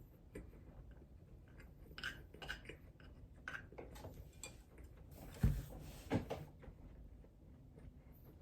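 A person chewing food close to the microphone: scattered soft mouth clicks and crunches, with a louder low thump about five and a half seconds in and a smaller one soon after.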